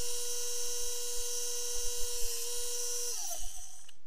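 Electric bench power tool running with a steady whine and high hiss. About three seconds in it is switched off and its pitch falls as the motor spins down.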